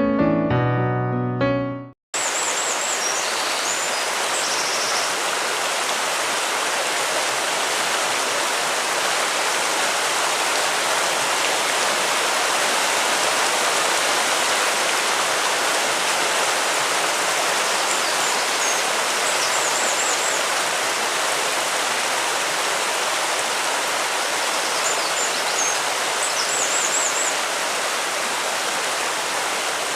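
Piano music that stops suddenly about two seconds in, then a gentle stream's steady rushing water, with birds chirping briefly a few times high above it.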